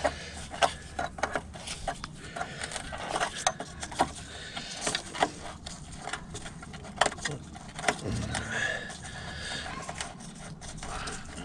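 Irregular metallic clicks and scrapes of an open-ended spanner on a car's brake line union nut as it is worked loose at the caliper.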